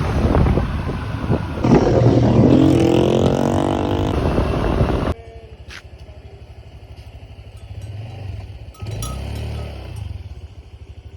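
Motorcycle engine revving, its pitch rising, loud for the first five seconds; then it drops suddenly to a quieter, steady pulsing run that picks up again near the end.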